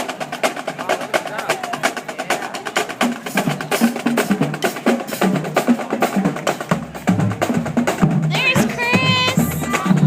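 Marching band drumline playing a fast, dense cadence of snare and drum strokes, with low band notes underneath.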